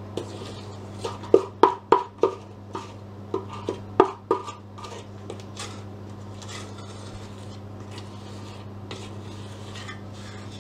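Kitchen utensils knocking and clinking against kitchenware, about a dozen sharp clinks with a short ring, most of them in the first five seconds and fewer after that. A steady low hum runs underneath.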